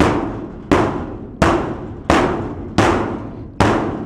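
A hammer striking a bent sheet-metal wall panel: six steady blows a little under a second apart, each ringing out and dying away. The dented panel is being knocked back out to close a gap in the wall.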